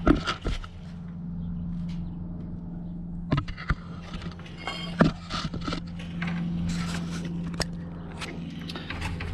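Handling noises of hands working under a motorcycle: scattered clicks, knocks and light scrapes from the camera being set down and bracket hardware being handled, with a sharper knock about five seconds in, over a steady low hum.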